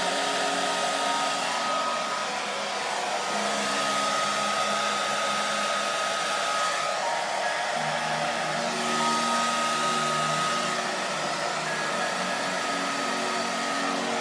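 Hand-held hair dryer blowing steadily over wet acrylic pour paint, a constant rush of air with a high whine.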